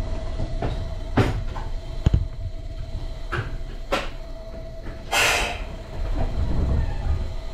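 Inside a Meitetsu electric train's cab at standstill: several sharp knocks and clicks over a steady electric hum. About five seconds in comes a short burst of air hiss, followed by a low rumble.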